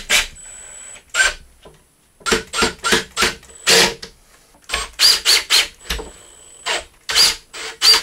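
Cordless drill-driver driving screws into a chipboard kitchen cabinet carcass. It goes as a string of short, sharp clicks and bursts in clusters, with a faint steady whine near the start and again in the second half.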